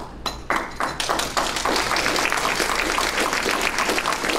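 Audience applause: a few separate claps that fill in to steady, dense clapping about a second in.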